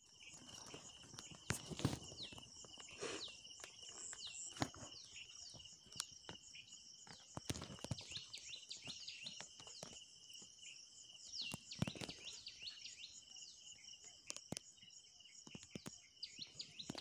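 Outdoor forest ambience: insects trill steadily while many short, downward-sliding bird chirps repeat over them. Scattered clicks and a few low rumbles of wind or handling on the phone's microphone break in, the strongest about two seconds in and again around twelve seconds.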